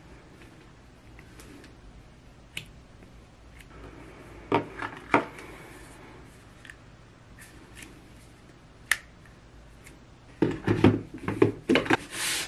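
Plastic Dyson Airwrap barrel attachments and their storage case being handled: scattered light clicks, two sharp knocks about five seconds in, then a quick run of knocks and clatter near the end as pieces go into the case, closing on a short scraping slide.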